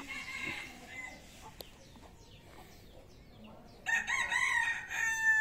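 Junglefowl-type rooster crowing once, starting about four seconds in. It is a short crow with a brief break before its last note, after a faint call near the start.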